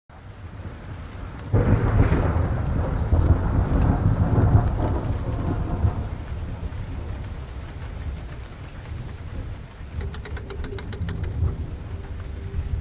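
Steady rain falling, with a roll of thunder that breaks suddenly about a second and a half in and rumbles away over the next several seconds.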